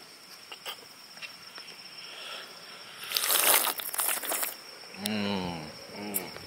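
A man slurping spicy pineapple-and-chili broth straight from the rim of a bowl: a loud wet slurp lasting about a second and a half midway, followed by two short hums from the eater. Crickets chirp steadily in the background.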